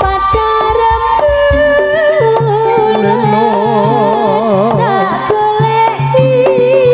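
Live Javanese jaranan music: hand-drum strokes and a steady low gong-like pulse under a wavering melody line, playing continuously and loudly.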